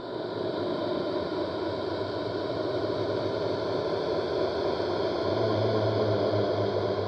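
Designed horror sound effect of a ghost waking: a dense hissing, rushing drone that swells up and holds steady. A low hum joins about five seconds in.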